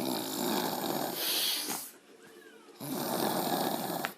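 A sleeping woman snoring: two long snores, each over a second, with a short pause for breath between them.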